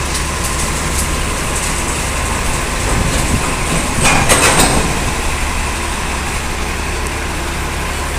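Steady low engine rumble of an Alexander Dennis Enviro500 MMC double-decker bus driving close past in street traffic, with a brief louder burst of clattering noise about four seconds in.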